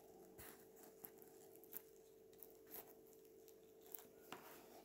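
Near silence: room tone with a faint steady hum and a few soft ticks as hands press a hot-glued artificial apple and ribbon decoration into place.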